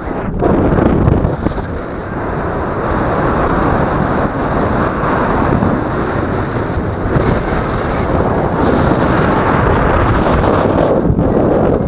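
Airflow over the microphone of a tandem paraglider in flight: loud, steady wind noise that swells about half a second in.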